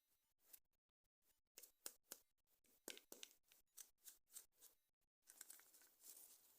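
Toy packaging being handled for an unboxing: a quiet string of short scratchy clicks and rustles, then a longer rustle near the end.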